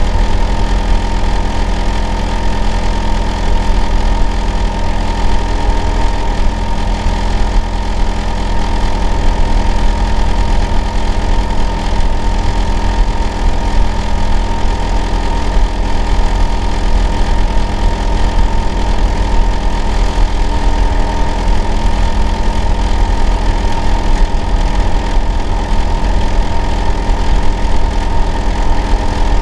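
Hitachi air-conditioner outdoor unit running steadily: a loud, deep hum with several constant tones above it, with no change in level.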